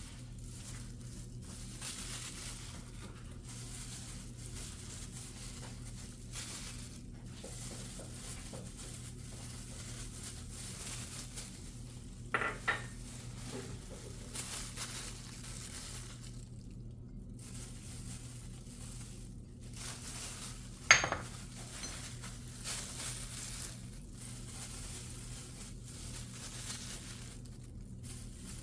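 Kitchenware being handled during cooking: dishes and utensils clink and knock now and then, with two sharp clinks about twelve and twenty-one seconds in, the second the loudest, over a steady low hum.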